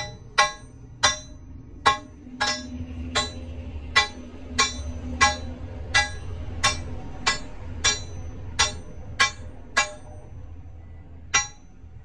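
A hammer striking a large steel hex nut on a threaded steel shaft: about sixteen sharp, ringing metal blows, roughly one and a half a second, with the last one after a short pause near the end.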